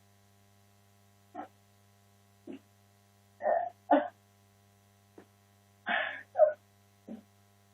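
About ten short, separate vocal sounds without words, a few of them fairly loud, over a steady low electrical hum.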